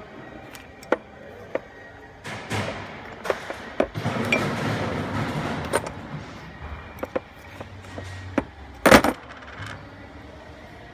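Small metallic clicks and scrapes of a steel hook pick prying at a diesel injector's sealing washer, with loose parts clinking on the tray and one louder clatter about nine seconds in.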